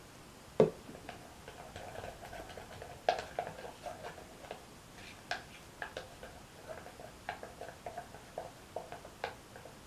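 Light tapping and clicking of a utensil against a plastic container as a slime mixture is stirred: one knock about half a second in, then a run of irregular taps, a few a second.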